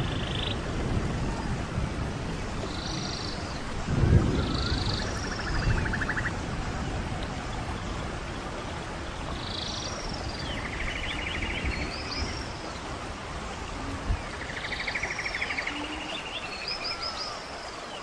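Forest ambience with wild animal calls: short buzzy trills, each about a second long, alternate with high chirps and rising whistles, repeating every few seconds over a steady hiss. A low rumble comes about four seconds in.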